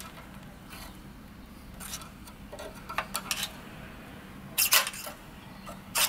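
Screwdriver clinking and scraping against a steel crossmember bracket and frame rail as it is worked in a bolt hole to line the parts up: a few short metallic clinks, the loudest cluster about four and a half seconds in.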